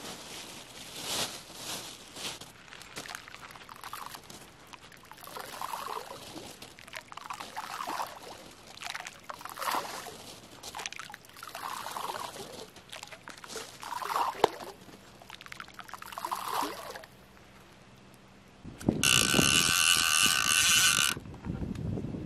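Water at the river's edge being scooped and poured, with short splashes about every two seconds. Near the end there is a loud harsh buzz that lasts about two seconds.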